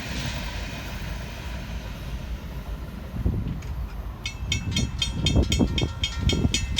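Freight train cars rolling past with a steady rumble and low wheel thumps over the rail joints. About four seconds in, a grade-crossing bell starts ringing rapidly, about five strikes a second.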